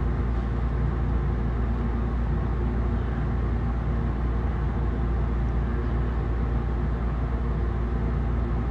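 A steady low mechanical hum that runs on without change.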